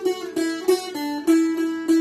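A plucked string instrument playing a slow solo melody, a new note plucked about every third of a second, each note ringing on into the next.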